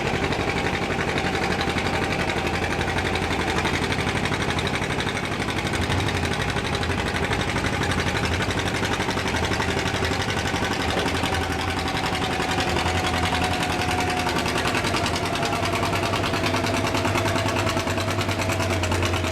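Farm tractor engine running loud and steady, its pitch sinking slowly through the second half.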